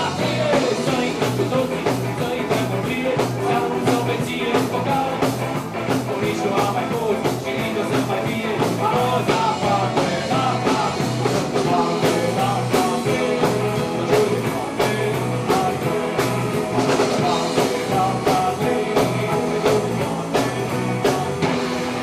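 A live rock band playing an instrumental passage between verses: a Tama drum kit, electric guitar, bass, a Yamaha Motif keyboard and a hand drum, with a wavering melodic lead line over a steady drum beat. The music is loud and continuous.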